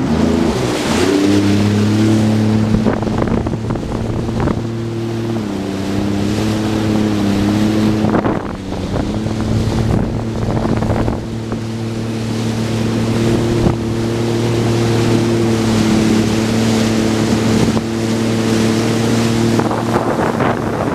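Jet ski engine running steadily at speed, its note dipping slightly for a few seconds about a quarter of the way in, with rushing water and wind buffeting the microphone.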